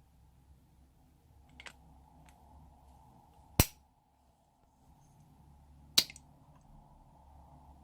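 Slime being worked by hand, with sharp pops of trapped air bursting: a faint pop, then two loud pops about two and a half seconds apart.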